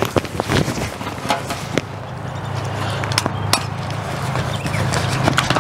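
Stiff green vinyl awning fabric rustling and crackling in short snaps as it is handled and fed into the awning's roller tube. Wind rumbles on the microphone underneath, growing stronger about two seconds in.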